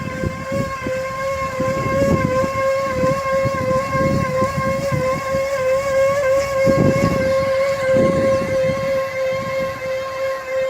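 A steady, high-pitched machine whine holding one pitch, with irregular low rumbling underneath.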